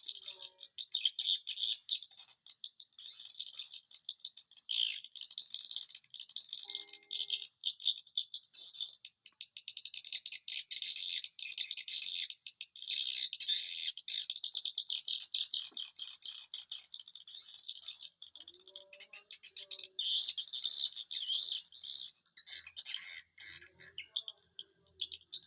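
A dense chorus of swiftlets' rapid high twittering and clicking calls, heard at a swiftlet house as the birds return at dusk. A few short lower calls stand out about a third of the way in and again near the end.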